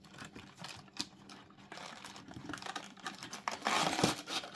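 Foil-wrapped trading card booster packs being pulled out of a cardboard booster box: a run of small clicks and rustles, with a louder crinkling about three and a half seconds in.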